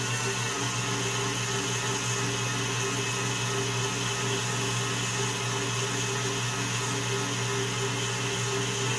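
KitchenAid Classic stand mixer running at a steady speed, its beater whipping a cream cheese mixture in the steel bowl: an even motor hum with no change.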